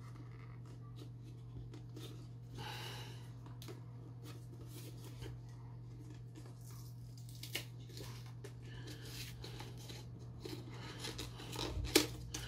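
Hands handling and unwrapping a small boxed item: scattered light clicks and rustles of packaging being picked at and torn, with a brief rustle about three seconds in and a sharp click near the end.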